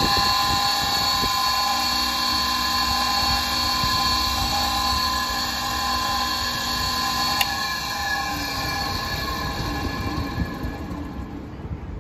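Nihon Chorioki MX40 high-speed mixer running empty, its motor and blade giving a steady whine. It is switched off with a click about seven seconds in, then winds down with a falling whine until it stops near the end.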